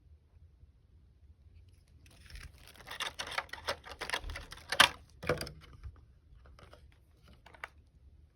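Packaging being handled and unwrapped: a couple of seconds of dense crackling and rustling with a sharp click in the middle, then a few scattered clicks.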